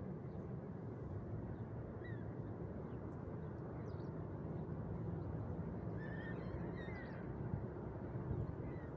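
A few faint bird calls, short chirps about two seconds in and a small cluster around six to seven seconds in, over a steady low background noise.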